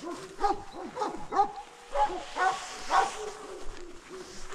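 A dog barking in a steady series, about two barks a second.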